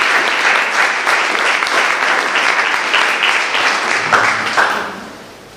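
Audience applauding at the end of a talk, the clapping dying away about four and a half seconds in.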